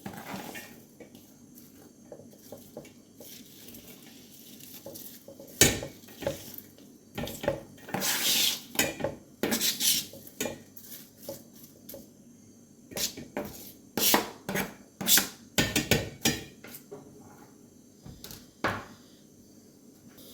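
Kitchen clatter: pots, dishes and metal utensils being handled, with irregular knocks, clinks and short scrapes, busiest through the middle of the stretch.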